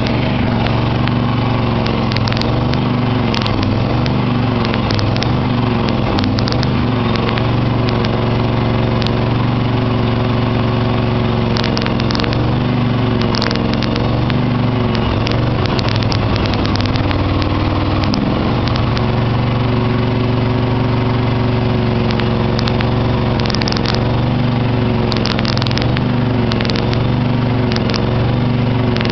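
Small lawn-tractor engine running steadily after starting, its pitch wavering now and then, with scattered sharp ticks. The owner blames a gummed-up carburetor for its rough running.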